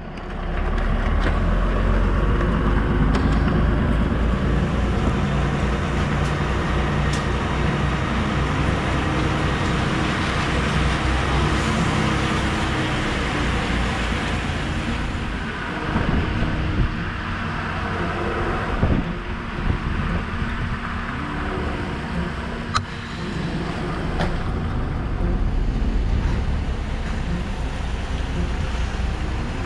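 DAF XF truck's diesel engine running steadily as the truck rolls slowly across the yard, with a few brief clicks and knocks.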